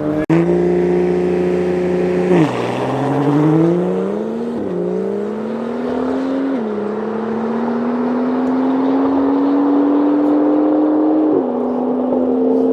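Car engine accelerating hard through the gears. Its pitch climbs steadily and drops suddenly at each of four upshifts, the last and longest pull running about five seconds.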